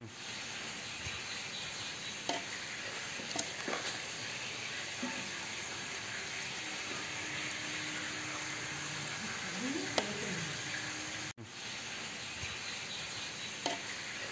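A steady sizzling hiss with scattered crackles and clicks, briefly cut off about eleven seconds in.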